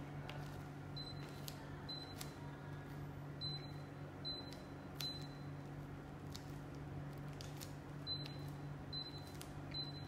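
Daikin FTNE35MV14 mini-split indoor unit giving a short high beep each time it receives a command from the remote, about eight beeps at uneven intervals, with light clicks of the remote's buttons being pressed. A steady low hum runs underneath.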